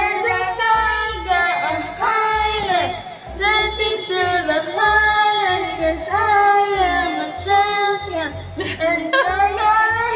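A girl singing in a high voice, holding long notes that waver and glide in pitch, without clear words.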